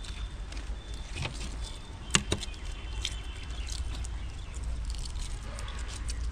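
Hard-boiled eggshells crackling and snapping as several people peel eggs by hand at once: a running patter of small cracks, with a sharper double crack about two seconds in.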